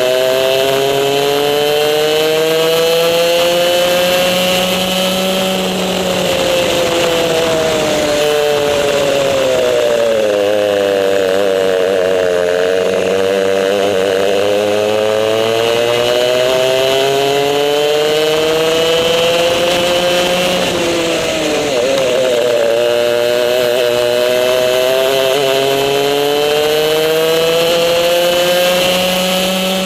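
Race kart engine heard onboard at speed, its pitch climbing along the straights and falling away as the driver lifts for a corner, lowest about twelve seconds in, dipping briefly again about two-thirds of the way through, then climbing once more.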